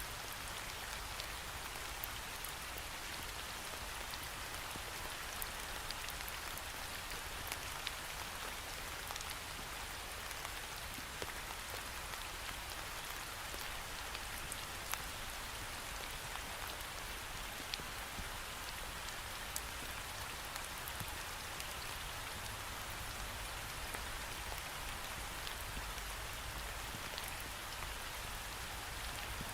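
Steady rain pattering against a window pane, with scattered individual drop ticks over an even hiss and a faint low rumble.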